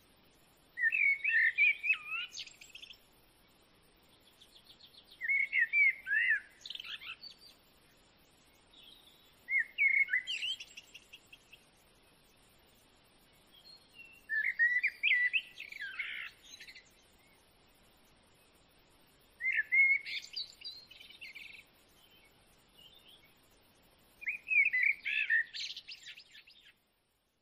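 A bird singing six short, chirping, warbling phrases, each about two seconds long and repeated every four to five seconds. The song cuts off shortly before the end.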